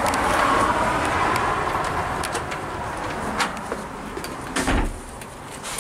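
Road traffic noise: a vehicle passing, loudest at the start and fading over the next few seconds, with a brief low knock a little under five seconds in.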